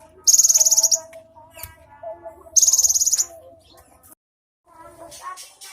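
A cinereous tit (gelatik batu) singing two short bursts of very rapid, high trilling about two seconds apart, with softer calls between them and near the end, over a faint low steady tone. Its song is stocked with phrases learned from other birds.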